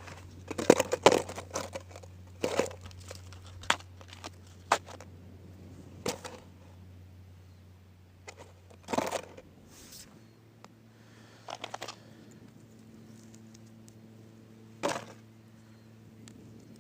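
Plastic crinkling and clicking as the cut-up plastic of an improvised fish trap is handled, in quick clusters at first and then in separate bursts a few seconds apart.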